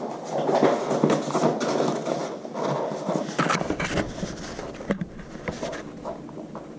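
Rustling and scattered light knocks of handling close to the microphone, with a cluster of sharper clicks about halfway through.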